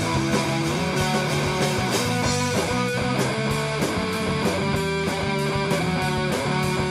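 Guitar-driven rock song from a small band, with strummed guitar over a steady drum beat.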